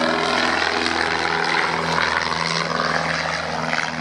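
Propeller-driven display aircraft flying past, a droning engine note whose pitch slides down and shifts as they pass.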